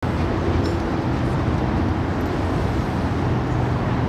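Steady low engine rumble with a constant low hum running through it, unchanging throughout.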